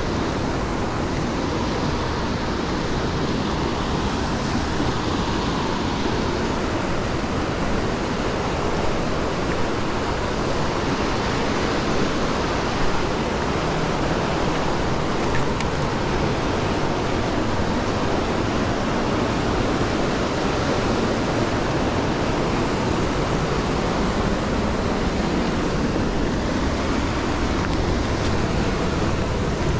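Small stream running fast, a steady rush of water.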